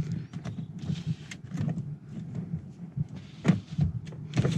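A car's electric power window motor runs with a steady low hum as a window is driven, and switch clicks come about three and a half seconds in and again near the end.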